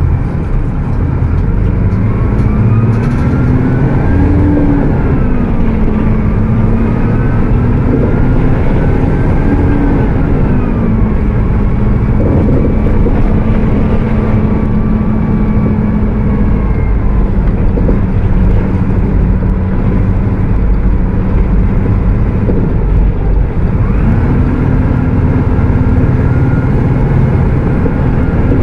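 Mercedes-Benz OF 1722M bus engine running at high revs, its cooling fan whining loudly over the engine rumble. The pitch climbs and drops several times as the bus pulls through the gears, holds steady for a stretch in the middle, then climbs again near the end.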